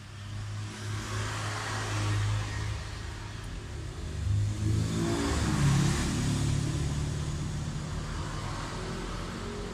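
A motor vehicle's engine running and passing by: it grows louder to a peak about six seconds in, then slowly fades.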